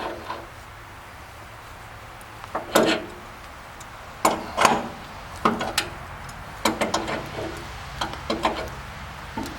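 Scattered knocks and clanks of hands and tools working on a band sawmill's blade and wheels during a blade-tracking adjustment, about ten in all, over a steady low hum.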